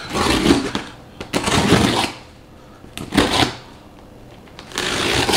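A blade drawn through packing tape along the seam of a cardboard box: four scraping strokes, each under a second, with short pauses between them.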